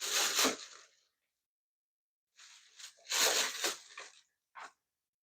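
Hands handling and rummaging through small objects, making rustling, crackling noise in three bursts, the last one short.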